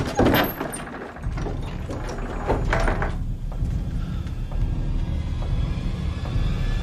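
Wooden knocks and scraping as a heavy wooden structure is heaved and pushed aside, with sharp knocks at the start and again about two and a half seconds in. Under it, from about a second in, a low steady rumble.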